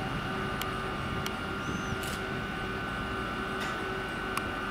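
Steady hum of electric trains at a station platform, holding a few constant whining tones, with a handful of faint sharp ticks.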